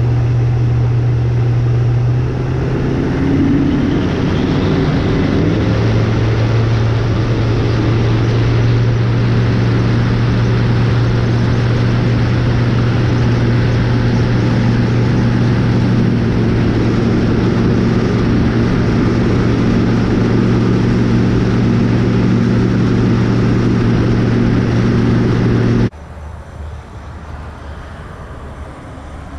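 Outboard motor of a Vexus AVX 1880 bass boat running under way, with a rushing hiss over the engine note. The engine note shifts during the first few seconds, then holds steady, until the sound cuts suddenly to a much quieter background near the end.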